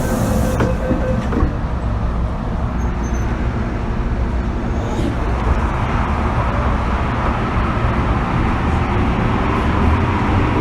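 Hong Kong MTR M-Train heard inside the passenger car: a steady rumble of wheels on track and running gear. Near the end a motor whine rises in pitch as the train speeds up.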